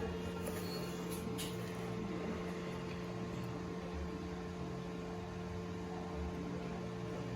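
Steady electrical-sounding hum over a constant background noise, with a couple of faint clicks about a second and a half in.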